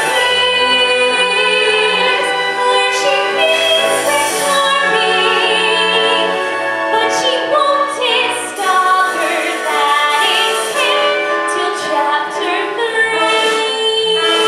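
A number from a live stage musical: singers, including a female voice and chorus, holding notes with vibrato over steady instrumental accompaniment.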